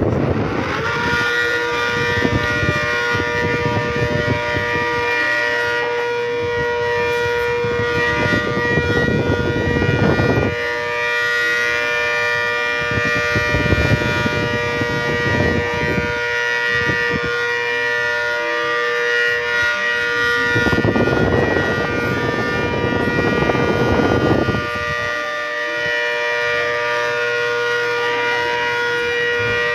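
Outdoor tornado warning siren winding up in the first second, then holding a steady wail of several pitches sounding together. Low rushing noise comes and goes underneath.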